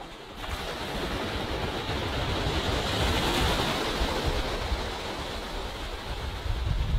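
Small waves washing onto a sandy beach: a rush of surf that comes in about half a second in, swells to a peak near the middle and eases off, with wind rumbling on the microphone.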